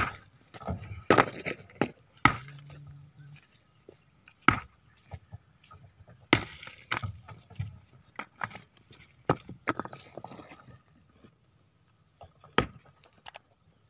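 Sledgehammer blows on a large boulder as a stone labourer breaks it up: sharp, ringing clinks of steel on rock, irregularly spaced about a second or so apart.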